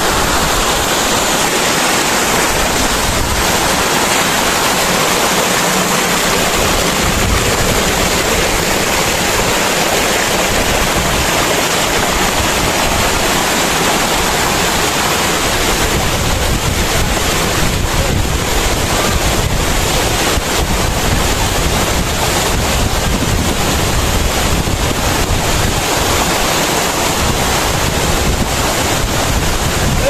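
Waterfall rushing: a loud, steady noise of falling water, with wind rumbling on the microphone.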